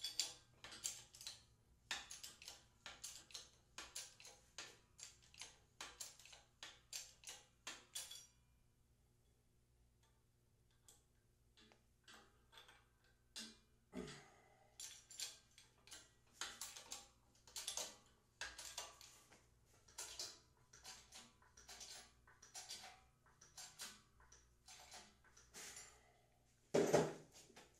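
Hydraulic bottle jack on a 12-ton shop press being pumped by its handle: sharp, regular clicks about two a second, pausing briefly partway through, as the ram closes on a barrel vise. A louder knock near the end.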